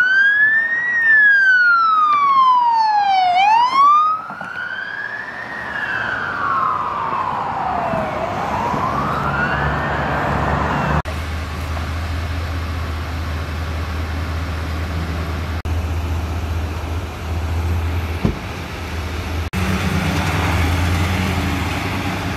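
Police car siren on wail, rising and falling slowly about every two and a half seconds, for roughly the first eleven seconds. After that the siren stops and a steady low engine rumble from emergency vehicles is heard.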